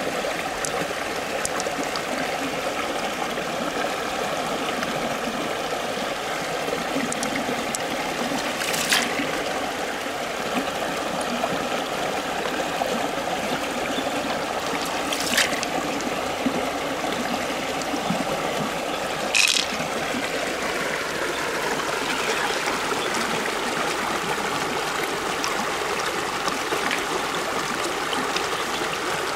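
Steady rush of flowing stream water, with three sharp clicks spread through it.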